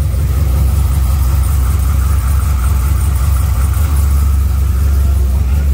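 Twin-turbo Chevrolet Silverado's V8 idling steadily with a deep, constant drone. A fainter steady whine rides over it and fades out about four seconds in.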